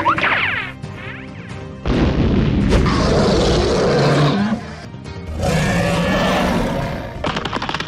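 Cartoon monster sound effects over background music: a quick rising whoosh at the start, then two long, loud monster roars, each lasting about two to three seconds.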